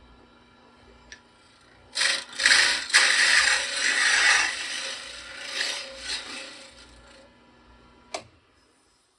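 Lathe spinning a pen blank between centers with a steady hum. About two seconds in, a round cutter is pressed into the turning blank, giving several seconds of loud scraping cuts in a few surges that tail off. A click near the end, as the hum stops.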